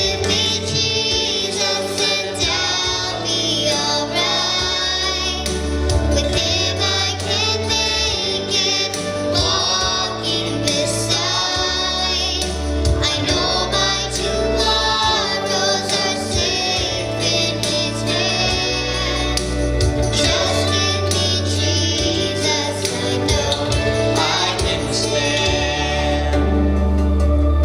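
A man and a woman singing a gospel song together over instrumental accompaniment with deep sustained bass notes.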